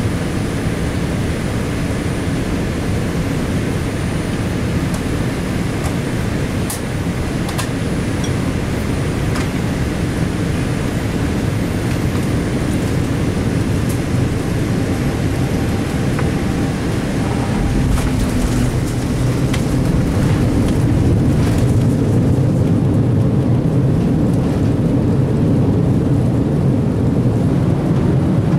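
Jet airliner cabin noise on a landing approach: a steady rumble of engines and airflow with a few light clicks. About eighteen seconds in, a deep thud as the wheels touch down, then a louder rumble through the landing roll.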